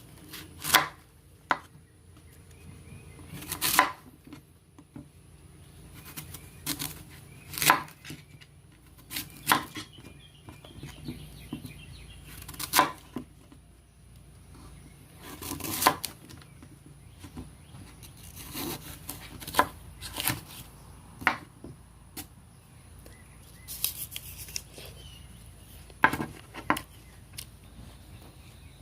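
Tops Bull Trout fixed-blade knife making a series of short, sharp cutting strokes, unevenly spaced from under a second to a few seconds apart.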